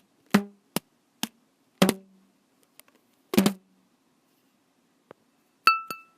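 A series of sharp, hollow-sounding knocks at irregular intervals, some doubled, from everyday objects being struck. Near the end come two quick, clear ringing dings.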